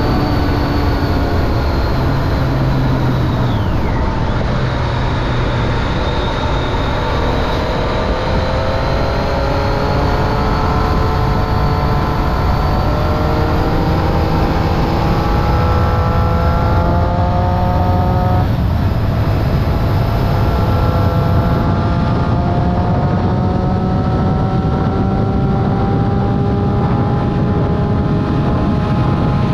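Triumph Street Triple 675's three-cylinder engine through a Remus Hypercone exhaust with dB killer, under way with its pitch slowly climbing. About eighteen seconds in there is a gear change and the pitch drops, then climbs again, over a constant low rumble.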